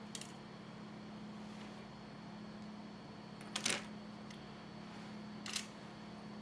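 Small metal repair tools clicking and scraping against an iPhone 6's internal parts during disassembly: three short clicks, the loudest about three and a half seconds in, over a steady low hum.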